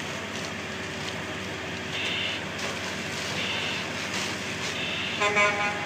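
Fire hose spraying water onto a burning van, with a steady engine hum under it and a short high beep repeating about every second and a half. A brief pitched call or tone sounds near the end.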